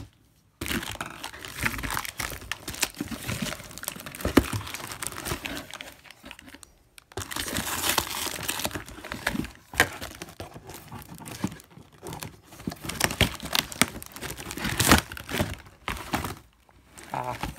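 Clear plastic packing tape being peeled and torn off a cardboard box, with the cardboard flaps and plastic crinkling and rustling under the hands; irregular crackles and scrapes with a few short pauses.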